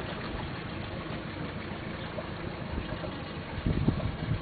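Small motor tour boat under way: a steady low engine-and-water noise, with wind buffeting the microphone in short thumps near the end.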